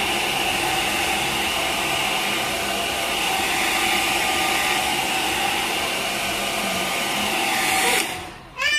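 Handheld hair dryer blowing steadily on a bathed kitten's wet fur, a constant airy noise with a faint steady tone in it. It cuts off suddenly about a second before the end, and a brief pitched sound follows.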